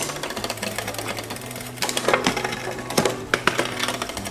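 Bicycle drivetrain turning in the repair stand: the chain runs through the gears with repeated clicks and a steady whirr, rubbing on the front derailleur cage. The rub shows that the front derailleur's limit screw needs adjusting to give the chain room.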